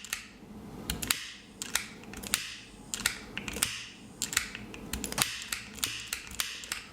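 A lighter clicked over and over in the SOS Morse code rhythm (three short, three long, three short), a sharp click roughly every half second or so.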